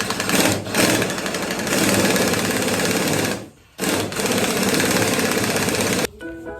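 Power tool hammering rapidly on metal in two long runs, with a brief stop about halfway.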